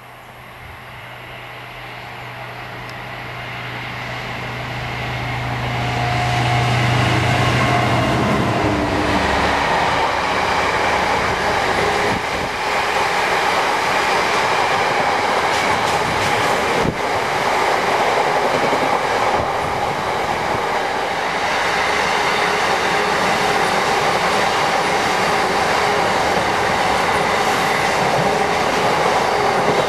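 A diesel locomotive hauling a freight train approaches, its deep engine hum growing louder over the first several seconds, and passes about eight seconds in. A long rake of covered hopper wagons then rolls by with steady wheel and rail noise and some clickety-clack over the rail joints.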